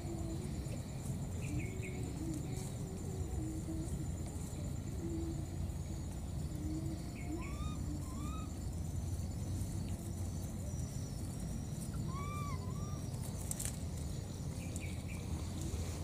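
Outdoor ambience: a steady high insect trill over a low rumble, with a few short rising-and-falling calls, a pair about seven seconds in and another pair about twelve seconds in.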